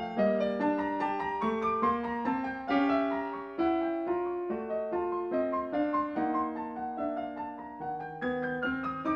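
Background piano music: a gentle melody of single notes over changing chords, each note struck and left to fade.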